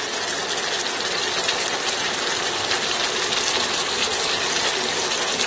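Tomato pizza sauce bubbling and sizzling at the boil in a saucepan, a steady crackling hiss.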